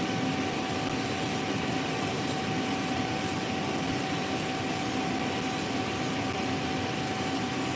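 Nail dust extractor fan running turned up high, a steady whir, together with an electric nail drill's coarse 3X bit grinding acrylic off a fingernail.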